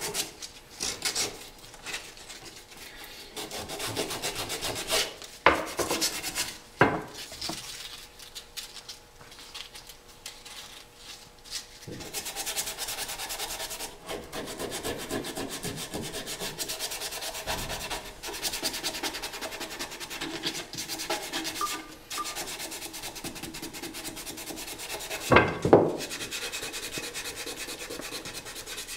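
Sandpaper rubbing by hand over the wooden tenon of a longbow, smoothing a coat of super glue that has dried rough. A few sharp knocks come through it, the loudest near the end.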